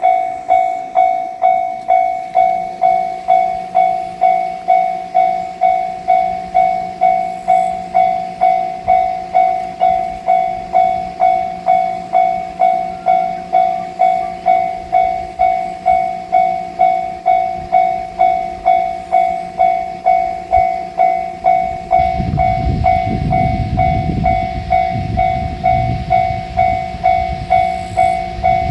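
Japanese level-crossing alarm bell ringing its repeated "kan-kan" tone, about one and a half strikes a second. About two-thirds of the way through, the low rumble of a JR Shikoku 1500-series diesel railcar passing over the crossing joins it.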